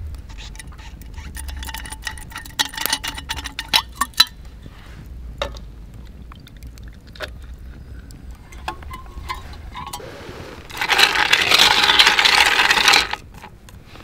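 Small metal clicks and clinks as a stainless hip flask's cap is handled, then gin poured from the flask onto ice in a steel cup, a loud splashing pour of about two seconds near the end.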